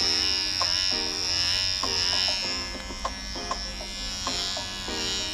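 Vintage T9 cordless electric hair trimmer running with a steady high whine as its blade is worked over forearm hair. Background music with plucked-sounding notes plays underneath.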